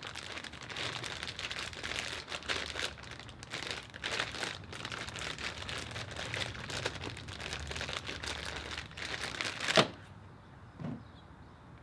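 Plastic bag crinkling and crackling without a break as a Rubik's Cube is turned inside it, with one sharp, louder crackle about ten seconds in, after which the crinkling stops and only a couple of faint taps follow.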